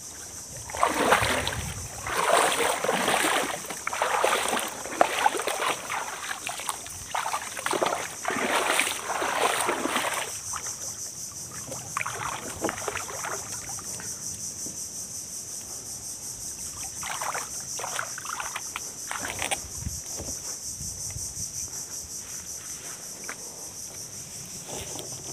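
Paddle strokes moving a small outrigger boat through water: irregular swishes and splashes over the first ten seconds, and a few more later. Under them runs a steady high-pitched drone of insects.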